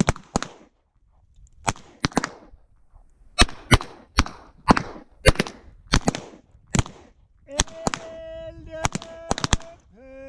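Revolver shots: a string of about fifteen sharp cracks at uneven spacing, more than one revolver holds, so neighbouring shooters on the line are firing too. From a little before eight seconds a steady held tone sounds under the last shots.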